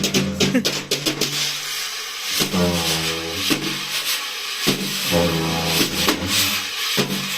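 Freshly restored snare drum with new heads and snare wires played in quick strokes for about the first second, then in sparser hits; it has a bright, high piccolo-like sound. A low droning pitched sound swells in and out about every two and a half seconds underneath.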